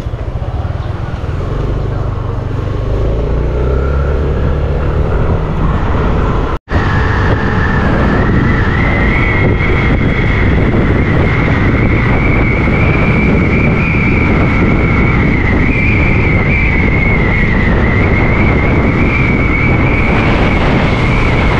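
Yamaha scooter pulling away, its engine rumbling. After a short break in the sound about six and a half seconds in, it runs steadily at road speed with heavy road and wind noise and a steady high whine.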